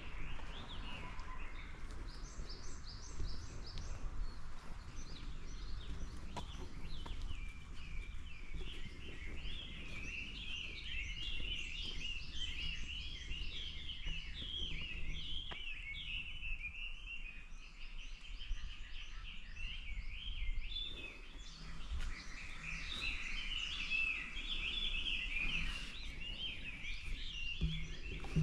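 A flock of small birds chirping and twittering without a break, many short repeated notes overlapping, over a low steady rumble.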